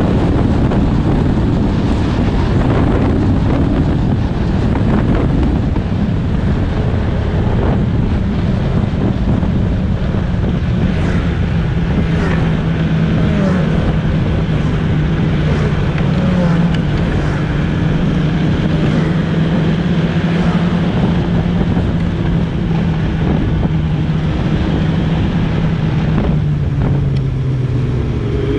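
Snowmobile running at a steady cruising speed, its engine note holding nearly level in pitch, with wind rushing over the microphone.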